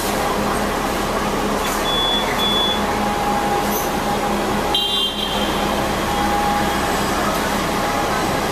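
Hong Kong double-decker tram running along a city street: a steady rumble with street-traffic noise, and a brief high-pitched ring about five seconds in.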